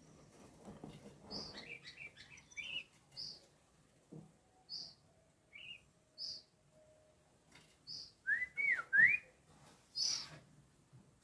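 Oriental magpie-robin (kacer) calling: short high chirps about every second and a half, then a quick run of whistled notes sliding up and down about eight seconds in, the loudest part.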